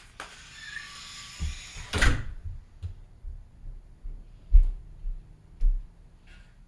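A door being opened and shut, with several dull low thuds.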